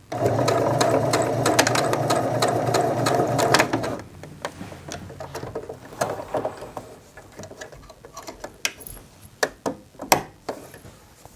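Sewing machine stitching steadily for about four seconds, then stopping, followed by scattered light clicks and taps.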